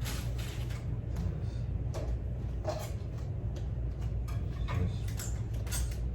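Plastic parts of a ring light's phone holder clicking and knocking as they are handled and fitted together, a scatter of short sharp clicks over a steady low hum.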